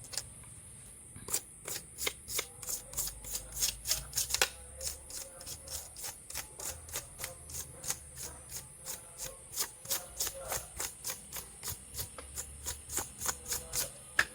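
A steady run of short, sharp clicks, about three a second, starting about a second in and keeping an even beat.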